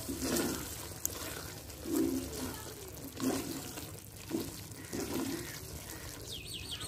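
A wooden spoon stirring soft, wet cooked gourd in a clay pot: five or so separate wet scraping strokes about a second apart.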